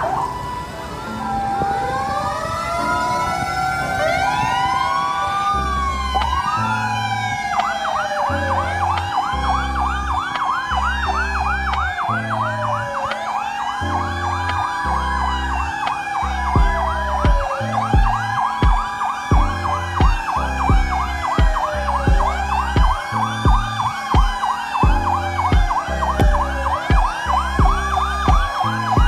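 Several fire truck sirens sounding together: slow wails rising and falling every few seconds, joined about seven seconds in by a fast yelp. Background music with a steady beat runs underneath, its beat stronger from about halfway.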